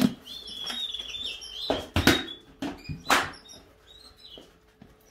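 Caged canaries chirping, with a few short rustling noises, the loudest about two and three seconds in.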